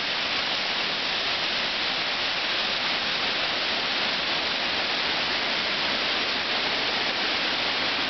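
Kiliyur Falls' water cascading over the boulders: a steady, even rush with no break.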